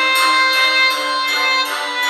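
Background music: instrumental melody of sustained notes changing about twice a second.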